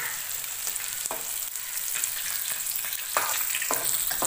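Marinated fish steaks shallow-frying in oil in an iron pan: a steady sizzle, with a few sharper crackles now and then.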